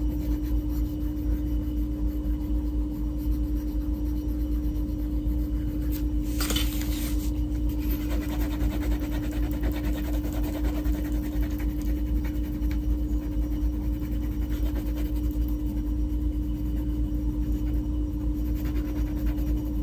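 Green wax crayon rubbing and scratching on colouring-book paper as a leaf is filled in, over a steady low hum. A short louder burst of noise comes about six seconds in.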